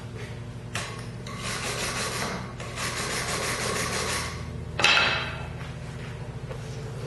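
Wire brush scrubbing in three quick rapid-stroke bursts over freshly stick-welded 7018 tack welds on small steel pieces held in a vise jig, cleaning off the slag. About five seconds in, a sharp ringing metal clank, with a steady low hum underneath.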